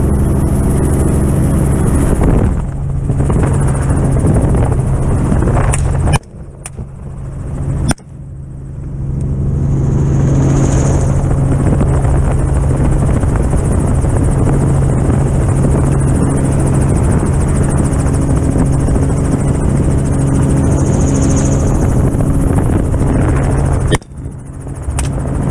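Helicopter rotor and turbine noise heard from inside the open-door cabin, loud and steady. Three sharp rifle shots from a 6.5 Creedmoor rifle cut through it, about six seconds in, two seconds later, and near the end. The cabin noise drops away for a moment after each shot before building back.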